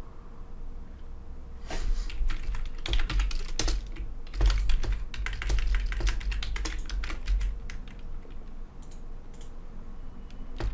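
Typing on a computer keyboard: a quick run of keystroke clicks that starts a couple of seconds in and thins out after about eight seconds.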